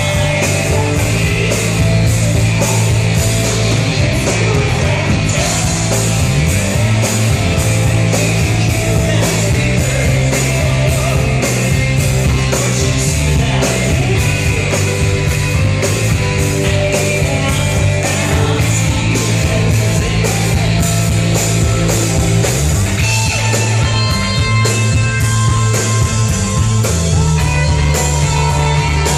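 Rock band playing live: drums keeping a steady beat under bass and electric guitar, with full, loud band sound throughout.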